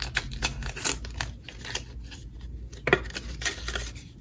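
Paper banknotes rustling and flicking as they are handled and tucked into a clear plastic binder pocket, with one sharper snap about three seconds in.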